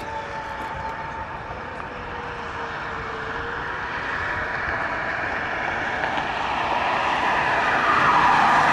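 Road traffic: a vehicle approaching on the road, its tyre and engine noise swelling steadily to a peak near the end.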